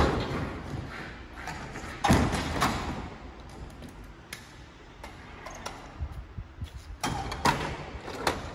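Hinged side doors of a box truck's cargo body being swung shut and latched: a clunk right at the start, a loud pair of bangs about two seconds in, light rattles and ticks of the latch hardware, then another pair of clunks near the end as the doors are closed and locked.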